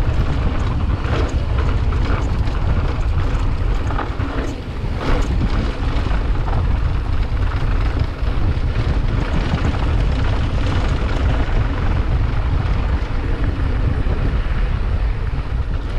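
Loud, steady rumble of a moving vehicle with wind buffeting the microphone, with a few short sharper noises in the first few seconds; it drops off suddenly at the end.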